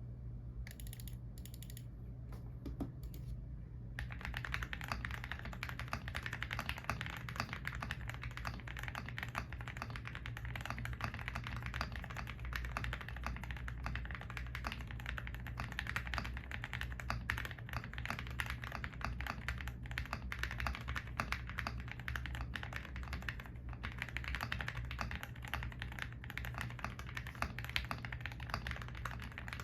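Continuous fast typing on a GMK87 tenkeyless mechanical keyboard with Gateron Milky Yellow Pro linear switches and PBT XDA-profile keycaps, the case foam- and tape-modded. A few scattered keystrokes come first, and steady dense typing starts about four seconds in.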